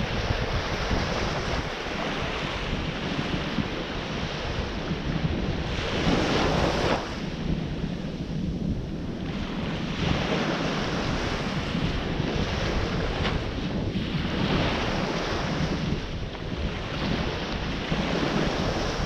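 Ocean surf washing in and breaking in swells, one louder wave about six seconds in followed by a brief lull. Wind rumbles on the microphone underneath.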